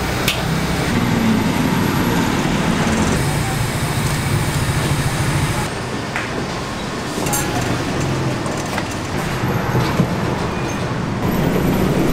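Steady rumble of street traffic, with a few light knocks and clicks on top and the sharpest one about ten seconds in.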